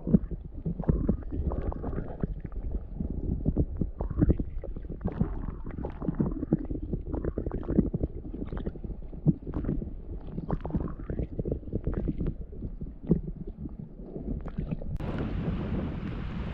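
Choppy wind-driven waves slapping and splashing in irregular low thumps, with wind buffeting the microphone. About fifteen seconds in it changes abruptly to a steady wind hiss.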